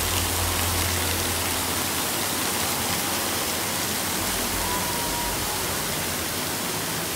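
Steady rushing of running and splashing water from water-park play features, an even hiss with no breaks.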